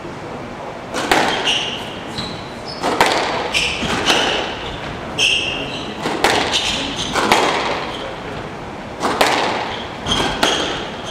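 Squash rally: the ball smacking off racket strings and the front wall again and again, often two hits in quick succession, with sneakers squeaking on the wooden court floor between shots.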